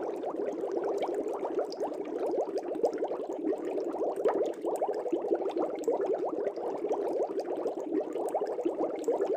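Aquarium air bubbles rising through the water of a fish tank in a dense, steady stream of small bubbling blips and pops.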